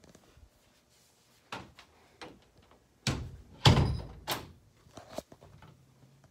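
Interior door with a round metal knob being worked: a few light clicks, then a cluster of sharp knocks and thuds from the knob, latch and door, the loudest about three and a half seconds in.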